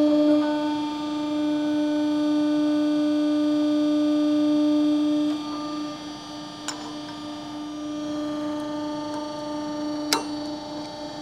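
Hydraulic shop press's pump motor humming steadily, loud for the first five seconds while the ram holds the bearing pressed onto the sprocket shaft, then dropping to a lower hum. A few sharp metal clicks come in the second half as a tool touches the hub.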